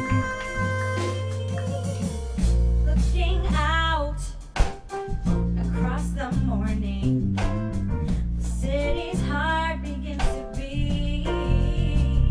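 Live band playing a slow soul-pop ballad with drums and bass under a lead melody that bends and glides in pitch, a passage without sung words.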